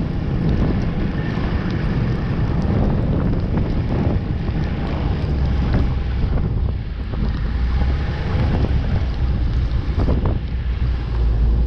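Snowmobile engine running while riding through deep snow, heavily buffeted by wind on the camera microphone. In the second half it settles into a steadier low drone as the sled slows.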